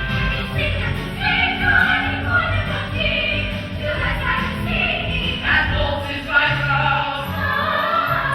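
Young cast singing together as a chorus over musical accompaniment with sustained low notes.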